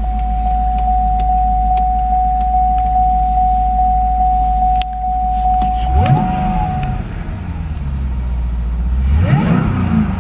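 Supercharged 6.2-litre V8 of a Cadillac CTS-V idling, with a steady pulsing warning chime that stops about seven seconds in. The engine is revved twice, about six and nine seconds in, each rev rising and falling back to idle.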